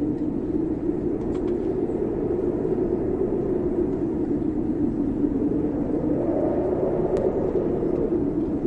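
Dark ambient soundtrack of a low, steady rumbling drone, with a few faint clicks.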